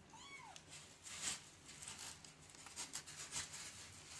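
A kitten gives one short meow that rises and falls, then faint irregular scratching and shuffling in clay cat litter.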